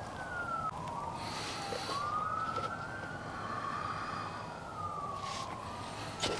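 Several emergency-vehicle sirens wailing at once, their slow rising and falling tones overlapping. A short knock near the end.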